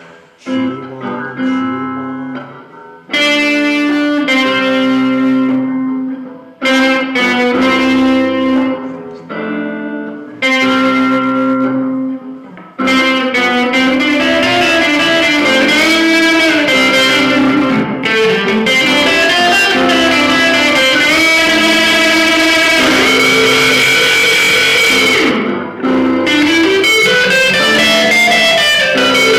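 Two electric guitars playing together: spaced-out chords with short pauses at first, then after about a dozen seconds a continuous lead line with bent notes over the rhythm guitar, including a long held high note near the end.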